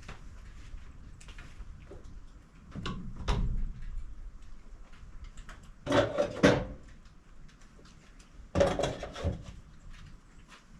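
Heavy oak log being rolled over on a sawmill bed: three bouts of thuds and clunks, about three seconds in, at six seconds and near nine seconds.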